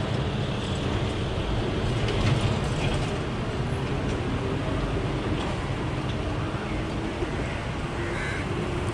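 Heavy loaded lorries' diesel engines running as the trucks turn slowly through a hairpin bend: a steady low rumble with some mechanical rattle.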